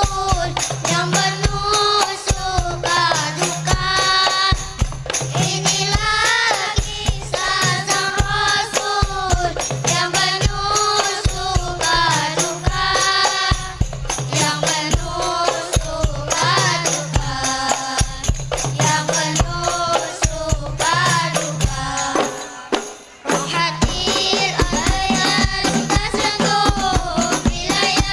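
Voices singing a chant-like devotional melody over a steady, fast beat of hand percussion, with a brief break about 23 seconds in.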